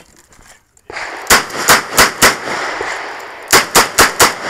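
Smith & Wesson 929 9mm revolver firing eight rapid shots, emptying its eight-round cylinder. The shots come in two strings of four, about a quarter second apart within each string, with a pause of a little over a second between the strings.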